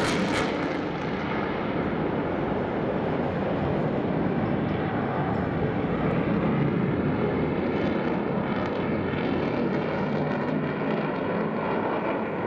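F-16 fighter jet's engine noise: a steady rushing roar from the aircraft flying a display pass. The sharpest hiss at the top of the sound fades within the first second as the jet moves away.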